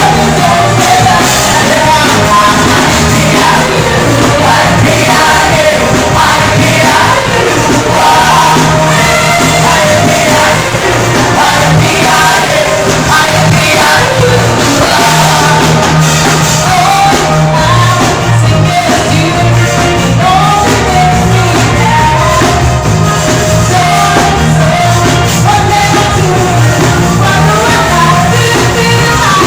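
Loud music with a singing voice over a heavy, steady bass line.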